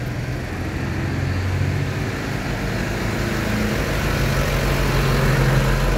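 A motor vehicle's engine running close by at low, steady revs, slowly growing louder as it comes nearer.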